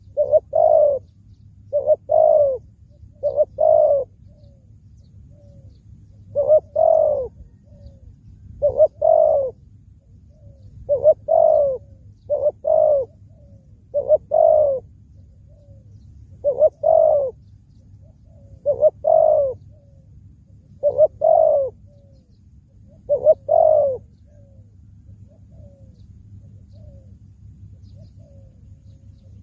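Spotted dove cooing: a long run of loud, separate coos, one every one to two seconds, that stops about 24 seconds in, leaving only a few faint notes. A low steady hum runs underneath.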